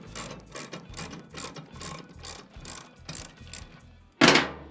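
Hand socket ratchet clicking in quick strokes, about three or four clicks a second, then a single loud clunk near the end.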